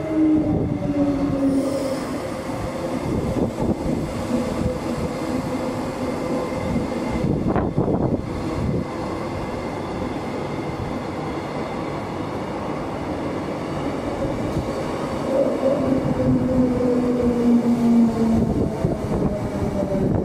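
Queensland suburban electric train pulling in alongside the platform: a steady rumble of wheels on rail, with a motor whine that falls slowly in pitch as the train slows. It gets louder as the cars pass close, about three-quarters of the way through.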